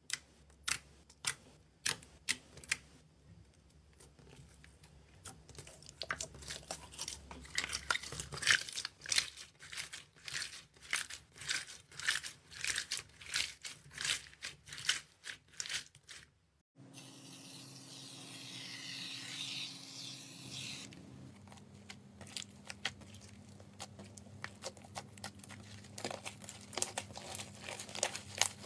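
Slime being squeezed and poked by hand, making sharp clicks and then dense crackling and popping in rhythmic squeezes. About two-thirds of the way in it changes abruptly to a steady soft hiss with a low hum, and then the crackling starts again.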